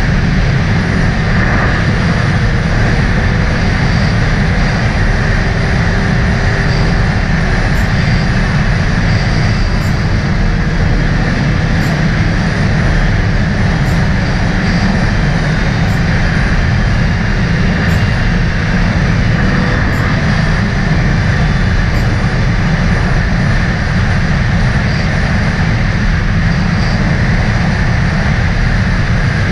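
Steady wind buffeting on the microphone over the running engine of a 2018 Sea-Doo RXP-X 300 jet ski (a supercharged Rotax three-cylinder) riding across choppy ocean water. The noise stays even throughout, with no change in engine speed.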